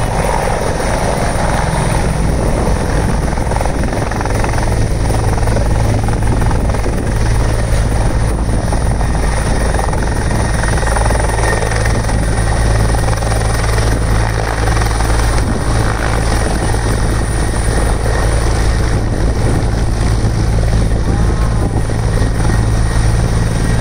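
Helicopter hovering low and setting down on a helipad, its rotor turning and engine running loud and steady, with a steady high whine over the rotor noise.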